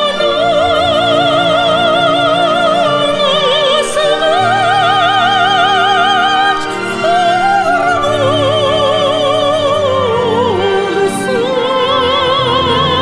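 Slow song: a woman's voice holds long notes with wide vibrato over orchestral backing.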